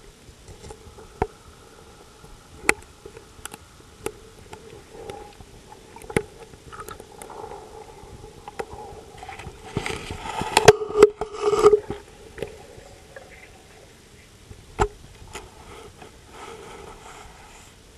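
Underwater sound from a model diving robot: a faint steady hum of its small electric drive motors, with sharp clicks and knocks every second or two. About ten to twelve seconds in there is a louder scraping rush as the robot brushes through submerged reed stems.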